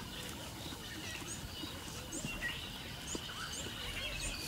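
Natural bush ambience: scattered short bird chirps over a faint, steady high-pitched tone and a low background hiss.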